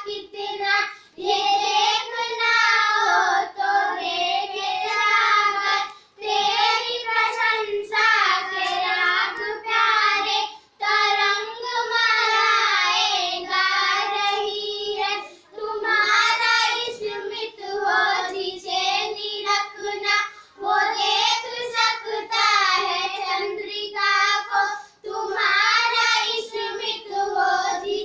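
Young girls' voices singing a Hindi prayer song together in unison, unaccompanied, in phrases with short breaths between them.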